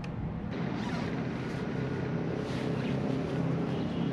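Honda CT125 Hunter Cub's air-cooled single-cylinder engine idling steadily.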